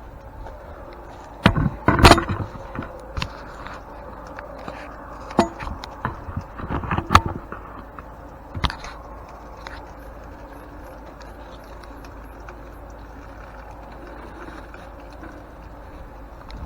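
Knocks, clanks and scrapes from an antique grain mill being shifted and moved, several sharp hits in the first nine seconds, then a steady faint background hum.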